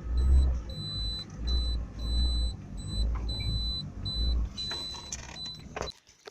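Mercury 2.5 hp outboard motor running while the boat moves, with gusts of wind buffeting the microphone and a thin high whine cutting in and out. The sound stops suddenly near the end.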